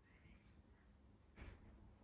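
Near silence: room tone, with one soft, brief noise about one and a half seconds in.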